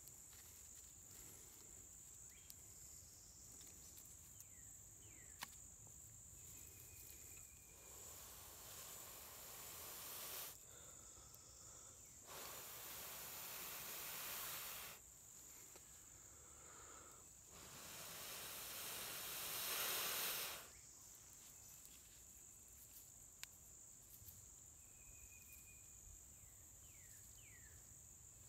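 Three long breaths blown into a tinder bundle holding a bow-drill ember, to bring it to flame: each a steady rush of air that swells, the last the loudest, coming about a quarter, half and two-thirds of the way through. A steady high insect drone runs behind.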